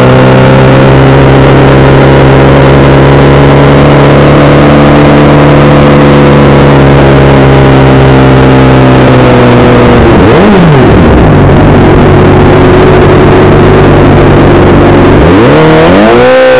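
Suzuki GSX-R inline-four sport-bike engine running steadily at low revs, with a quick blip of the throttle about ten seconds in. Near the end the revs climb steeply as the bike pulls away.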